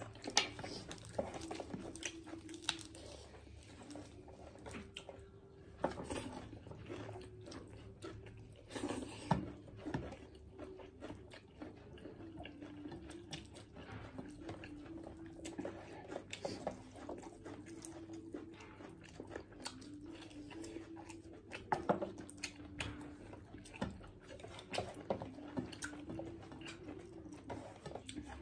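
Close-miked eating sounds of people eating rice and mutton curry by hand: chewing, wet smacking and crunchy bites. Many short sharp clicks come at irregular moments, the loudest about nine seconds in and again around twenty-two seconds. A faint wavering tone runs underneath.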